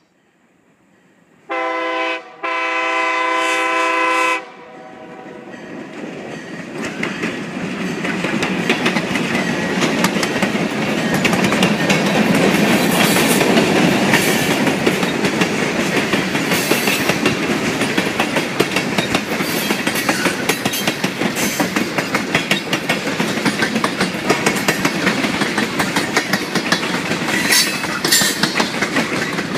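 Wheeling & Lake Erie diesel freight locomotive sounding its air horn, a chord of several notes, twice about two seconds in: a short blast, then a longer one. The train then rolls past, a rumble that grows loud within a few seconds and stays steady, with the clickety-clack of the freight cars' wheels over the rail joints.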